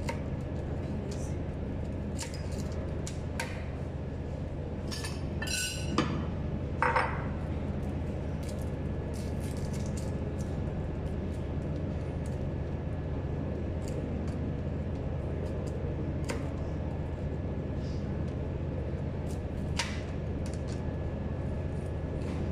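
Scattered clicks and knocks of a knife and a red onion being handled on a cutting board, with skins dropped into a ceramic bowl, the loudest clinks about six and seven seconds in. A steady low hum runs underneath.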